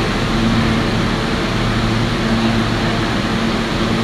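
R160 subway train standing in the station with its air-conditioning and onboard equipment running: a steady loud rush with a low hum that drops out for a moment and comes back about two seconds in.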